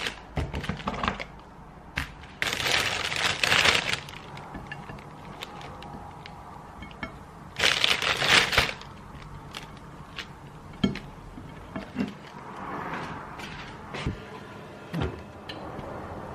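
Plastic food packaging crinkling in short bursts, loudest about eight seconds in as bread is taken from a plastic bread bag, with a few light knocks of things set down on a kitchen counter.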